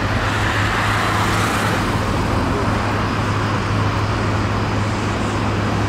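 Airbus A320neo's CFM LEAP-1A turbofan engines running at taxi idle as the airliner taxies: a steady, even noise over a constant low hum.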